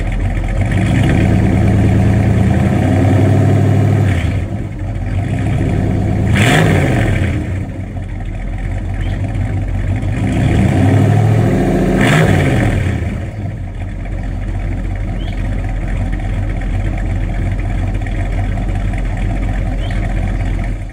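1986 Ford F-150's built 351 Windsor V8 with a Comp Cams hydraulic roller cam, breathing through shorty headers and Flowmaster 40 Series mufflers. It is revved up several times, with sharp blips about six and twelve seconds in, then settles to a steady idle.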